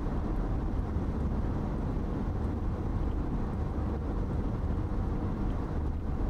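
Car driving at steady speed on a motorway, heard from inside the cabin: an even low rumble of engine and tyre noise.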